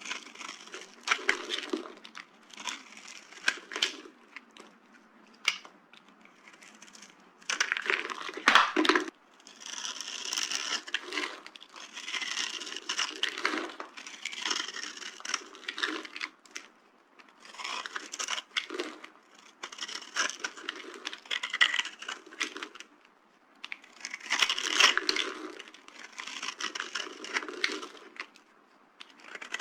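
Dry bar soap being crushed and crumbled, giving crisp crackling crunches. They come in repeated bursts, some brief and some lasting several seconds, with short pauses between, and the loudest is about nine seconds in.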